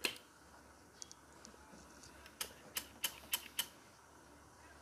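Sharp, separate metal clicks on a Hero HF Deluxe motorcycle engine: one at the start, then a quick run of five about halfway through, as the freshly fitted gearshift shaft is worked by hand to check that it moves.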